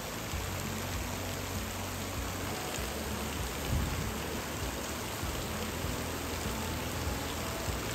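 Steady rushing of flowing river water, an even, unbroken wash of water noise.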